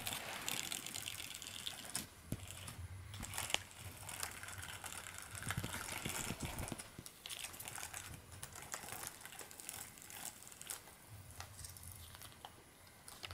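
Two kittens scuffling and pawing on a quilted bedspread, their claws scratching and rustling the fabric with small clicks as they bat at a battery-powered flower cat toy. A low hum from the toy's small motor comes and goes, near the start and again near the end.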